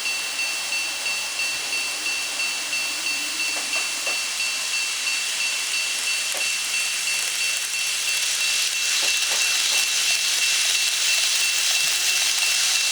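Model railway level-crossing alarm ringing in a steady repeating beat, a little under two rings a second. From about two-thirds of the way in, the hiss of an N gauge train running along the track grows louder under it.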